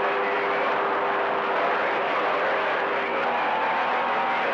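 CB radio receiver on channel 28 passing open-channel static between transmissions, with a steady hiss and a few faint steady whistling tones from other carriers on the band.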